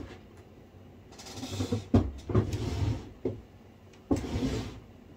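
Handling noises at a desk: several rustling, scraping bursts, with sharper knocks about two seconds in and again about four seconds in.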